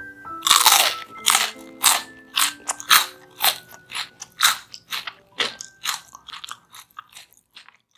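Crunchy bites and chewing of crispy fried potatoes, about two crunches a second, getting fainter toward the end, over soft background music.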